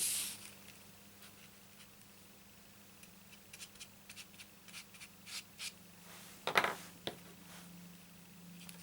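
Light scratches and small ticks of cardstock pieces being handled and a glue pen worked on a small paper piece, with a sharper tap about six and a half seconds in, over a faint steady hum.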